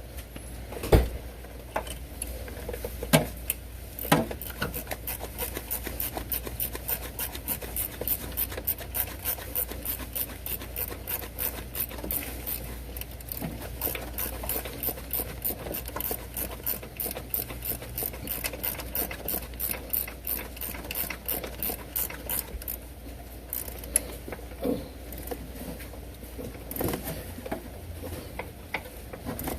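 Hand ratchet clicking in a long steady run as alternator mounting bolts are tightened. A few sharp knocks of tools on metal come before and after the run.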